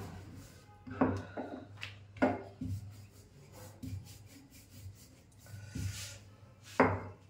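Wooden rolling pin rolling out paratha dough on a stone countertop: irregular rubbing strokes with a knock now and then as the pin is set down and pushed across the dough, the loudest knock near the end.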